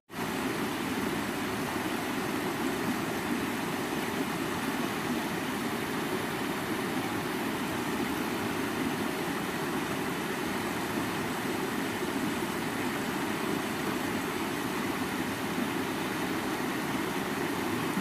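Shallow rocky stream rushing over stones, a steady, even water noise.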